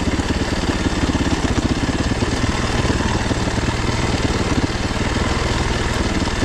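Yamaha WR450F's single-cylinder four-stroke engine running steadily at low revs, with a fast, even firing pulse.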